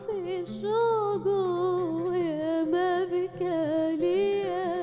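A woman singing live in Arabic style, one long wavering line that bends and slides in pitch, over low sustained oud accompaniment.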